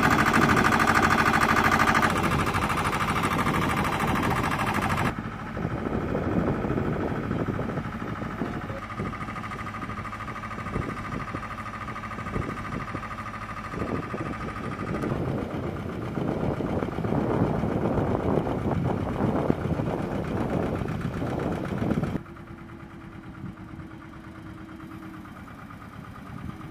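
Running engines and ground equipment on an airfield flight line, with scattered metallic knocks through the middle stretch. The sound changes abruptly several times and drops to a quieter steady hum for the last few seconds.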